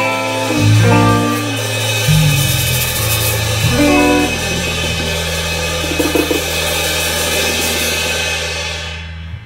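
Live band jam with electric bass, guitar, drums and cymbals, improvised freestyle. Partway through, the bass settles on one long held low note under a wash of cymbals, and the music stops just before the end.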